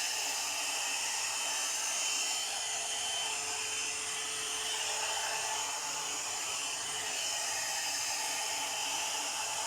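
Premio 3-in-1 hot-air blower brush running steadily on its high setting: a constant rush of blown air with a faint steady motor tone.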